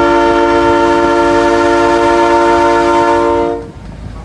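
Horn of miniature-railroad locomotive #2502 giving one long, loud blast of several notes at once, which cuts off about three and a half seconds in.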